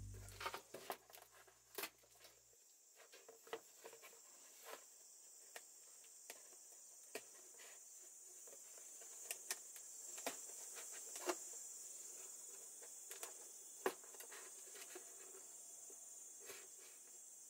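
Faint handling of a cardboard box: scattered light taps, clicks and scrapes as bamboo skewers are pushed through its sides and the box is turned, over a steady high-pitched background hiss.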